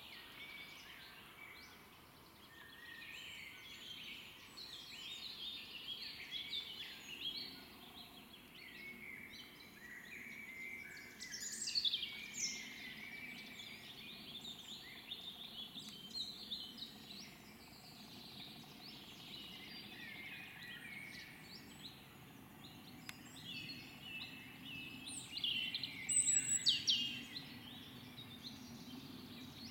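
European robin singing: a long run of thin, varied warbling phrases, loudest about twelve seconds in and again near the end.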